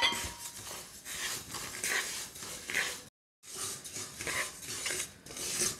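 Wooden spatula stirring and scraping sesame seeds as they dry-roast in a nonstick frying pan, the seeds rustling and starting to crackle in the heat. The sound breaks off briefly about three seconds in.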